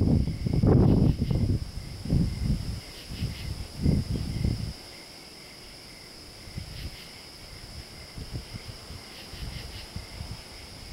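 Steady high chorus of night insects such as crickets, with gusts of wind rumbling on the microphone for the first five seconds or so.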